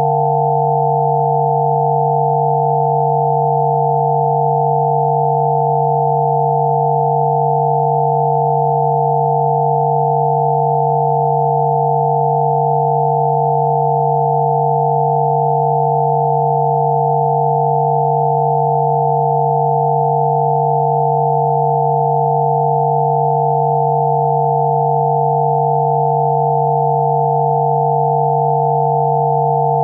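Steady electronic sine tones: a low hum and several higher pure tones held together, unchanging. It is a 'healing frequency' tone track meant for sneezing.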